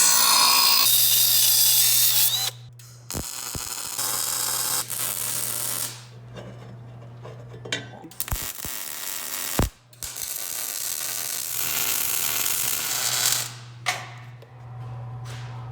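Power-tool metalworking on steel angle iron: stretches of harsh hissing and crackling noise that stop and start several times, over a steady electrical hum, with a few sharp clicks.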